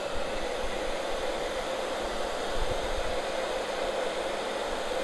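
Hand-held hair dryer running steadily: a continuous rush of blown air with a faint even hum beneath it.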